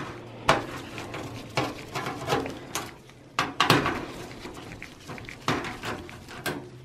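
Screwdriver turning a screw in the front USB and audio port bracket of a steel PC case: irregular metallic clicks, scrapes and a few sharper clinks.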